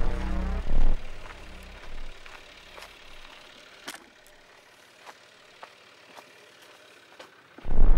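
Experimental electronic music: deep throbbing low pulses with shifting, interlocking tones that die away after about a second, leaving a quiet stretch with scattered sharp clicks, before a loud low rumble cuts in suddenly near the end.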